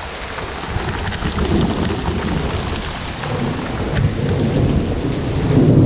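Heavy rain really coming down, with a low rumble of thunder that swells toward the end.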